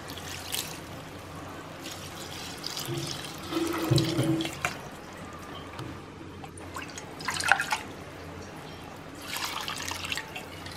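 Cups of water being poured over rice into an aluminium biryani pot, splashing in several short pours a few seconds apart.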